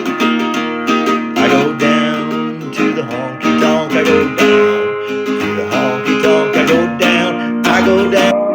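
Acoustic guitar strummed in chords, playing on after the last sung line of a country song.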